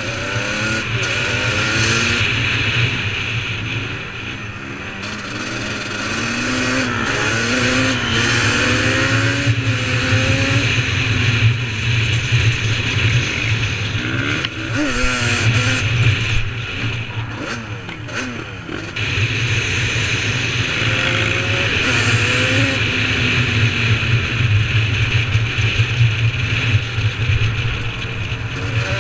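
Quad bike engine revving up and down repeatedly as it is ridden along, with a steady wind hiss over the microphone.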